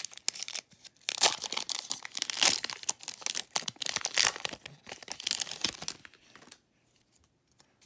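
Foil wrapper of a Pokémon Shining Fates booster pack crinkling and tearing as it is opened by hand, in quick, crackly bursts that stop about six seconds in.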